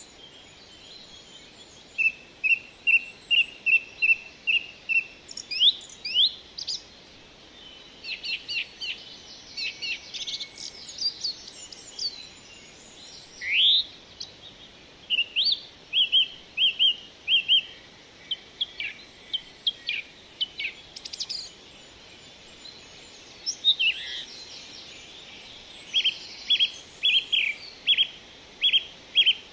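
Birds singing: phrases of short, quick, high chirps repeated in runs, with a few rising whistled notes and pauses between the phrases.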